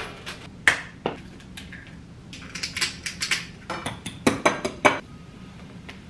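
Kitchen clatter of dishes and cutlery: a couple of separate knocks, then a run of quick clinks and knocks between about two and five seconds in, as breakfast is made with a toaster, plates, a bowl and a knife.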